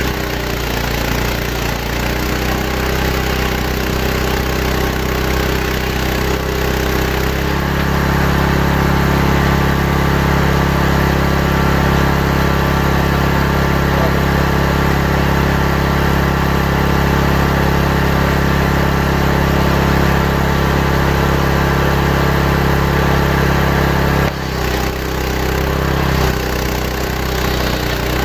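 Saw bench with a large circular blade ripping a santol log lengthwise. The machine runs with a steady, tone-rich hum that shifts in pitch about a quarter of the way in and dips briefly near the end.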